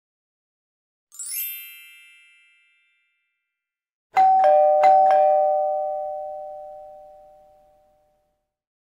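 A quick rising shimmer of bell-like tones about a second in, then a two-tone doorbell-style chime, ding-dong ding-dong, high then low twice, ringing out for about three seconds: an added intro sound effect.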